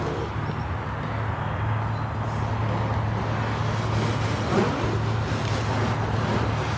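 Steady low mechanical hum over a constant outdoor background noise.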